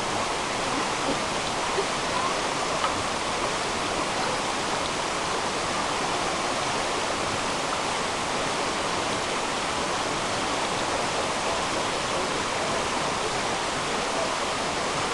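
Steady rushing of running water, an even, unbroken noise.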